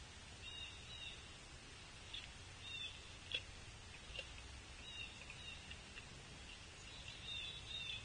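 Faint high bird chirps in short runs over a low background rumble. A few sharp taps, the loudest about a third of the way in, come from a pileated woodpecker pecking at a wooden log-style feeder.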